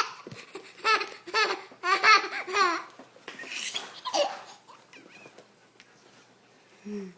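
A baby laughing in several bursts of belly laughs and giggles, with a quieter stretch near the end.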